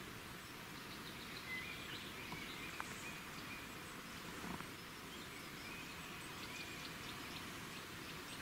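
Forest ambience: a steady hiss with scattered short bird chirps and a few faint clicks.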